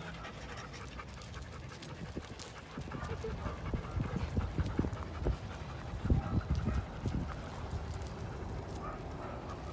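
Several dogs panting, with irregular low thumps and bumps that are loudest in the middle.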